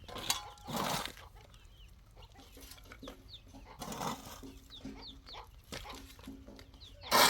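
Chickens clucking, with three short harsh noises about a second in, about four seconds in, and the loudest near the end.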